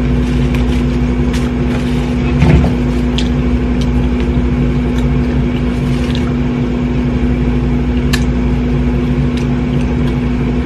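A steady low machine hum with a fixed tone, over which small clicks and crunches of people eating fried chicken come scattered, one a little louder about two and a half seconds in.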